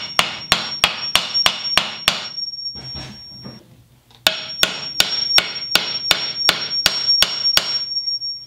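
Hammer blows driving a Kelly Perfect single-bit axe head onto a new wooden handle, the head resting on a wooden block: quick sharp strikes about three a second in two runs, with a pause of about two seconds between, and a thin high ringing note behind the strikes.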